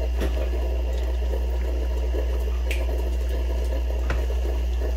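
Solis Barista Perfetta espresso machine's pump running steadily, a loud low hum as it pushes water through the group head into the cup, with a few faint ticks.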